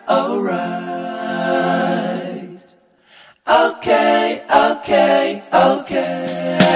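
Background music with a sung vocal line; it drops out briefly about three seconds in, then resumes in short sung phrases.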